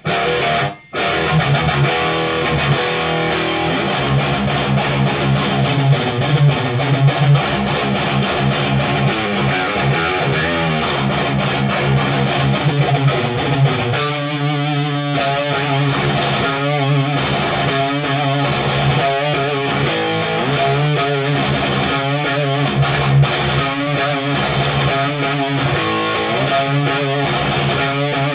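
Ibanez RGA42FM electric guitar through a cranked Randall Diavlo RD20 high-gain tube amp, playing a heavily distorted metal riff. After a short break right at the start it plays continuously, and about halfway through it turns into a stop-start chugging rhythm with short gaps.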